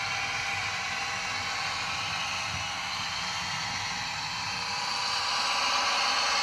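DCC sound decoder in a Bachmann Class 55 Deltic model locomotive playing its twin Napier Deltic diesel engine sound through the model's small speaker, a steady hissy engine drone that grows a little louder about five seconds in.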